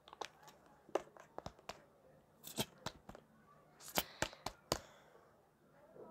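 A sunscreen container being handled and opened: a scattered run of short clicks and crinkly rustles, about a dozen, bunched in the first five seconds.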